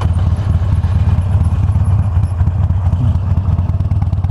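Harley-Davidson Iron 883's air-cooled V-twin engine running at a steady cruise, a loud, low, pulsing exhaust rumble.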